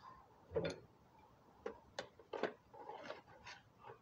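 Handling noise from a Henry AR-7 survival rifle's hollow stock and parts. A dull knock comes about half a second in, followed by irregular sharp clicks and taps.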